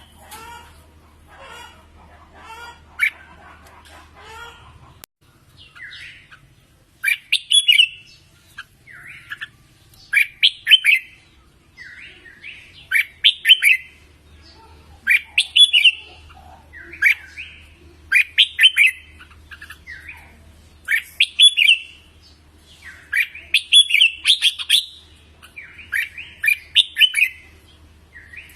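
Red-whiskered bulbul singing: loud, short warbled phrases repeated every one to two seconds, starting about five seconds in, after a few seconds of softer, quicker chatter. A faint low hum runs underneath.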